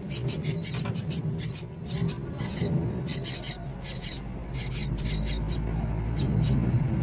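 Myna nestlings begging: rapid, high-pitched squeaky calls, several a second, thinning out near the end.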